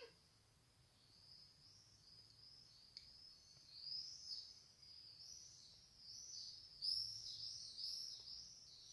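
Faint, high-pitched chirping of small birds: a run of short rising-and-falling notes that grows louder and quicker from about four seconds in and is densest near the end.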